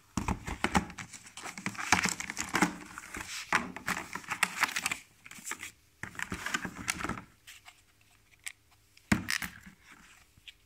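Clear plastic blister packaging crinkling and crackling as it is handled and opened, dense for about seven seconds, then a few scattered crackles with one sharper crackle near the end.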